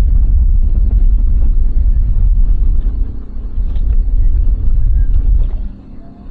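Heavy wind buffeting on the microphone over the steady hum of a center-console boat's engine running underway. The rush drops off sharply near the end.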